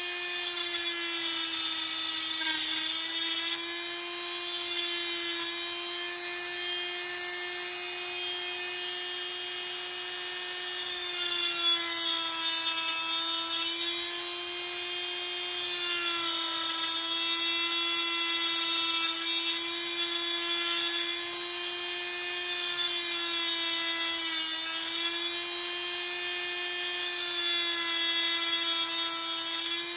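Small electric power tool running continuously with a steady whine, its pitch sagging slightly a few times as it bears on tulsi wood.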